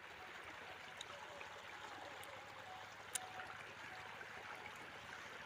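Faint, steady outdoor background hiss with a few soft clicks, the clearest about three seconds in.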